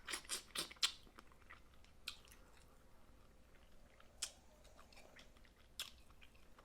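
Snow crab being eaten: a quick run of sharp shell crackles and wet chewing clicks in the first second, then three single clicks spread over the rest.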